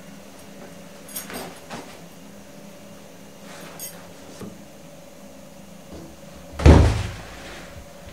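A few faint knocks and rustles, then a single heavy thump about two-thirds of the way in that dies away quickly, like a door banging.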